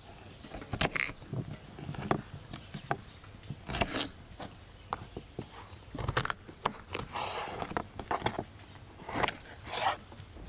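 Kitchen knife cutting raw carrots on a wooden cutting board: irregular sharp knocks of the blade going through the carrot into the board, with a few short scrapes.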